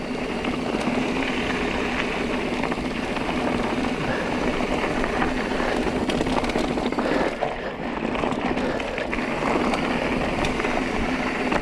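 Carbon mountain bike rolling fast down a rough dirt trail: steady tyre and riding noise with many small knocks and rattles over bumps, under a constant low hum.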